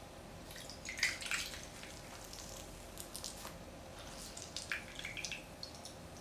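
Faint squishing and dripping of water as a foam makeup sponge is squeezed in a bowl of water, in a few short bursts about a second in, around three seconds and again near the end.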